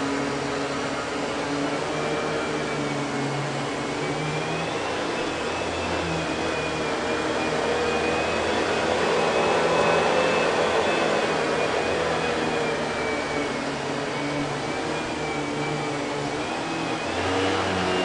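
Kenmore Progressive canister vacuum running steadily, its power nozzle working back and forth over carpet. There is a high motor whine that wavers slightly in pitch over a rush of air, and it grows louder about halfway through as the nozzle comes close. The motor is an early Panasonic unit, which the owner says sounds odd for this model.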